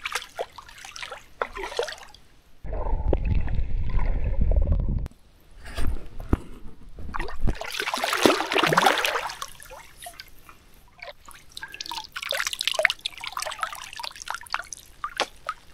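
Water splashing, dripping and trickling as a hooked carp is brought into the landing net and lifted out of the lake. A low rumble lasts about two seconds, starting a few seconds in.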